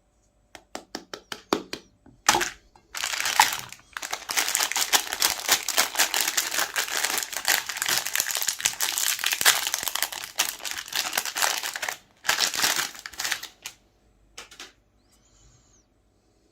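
Crinkling and crackling as a Magnum ice cream bar is handled. It starts with a quick run of separate clicks, then runs on as dense crackling for about nine seconds, with a shorter burst after it and a few small crackles near the end.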